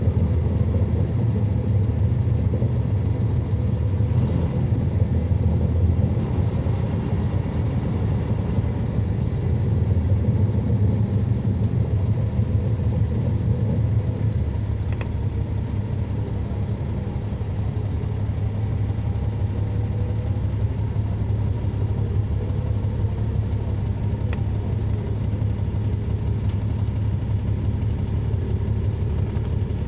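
Caterpillar C13 ACERT diesel engine of a NABI 416.15 (40-SFW) transit bus running with its engine cooling fans on, a steady low drone heard from the rear seats inside the bus.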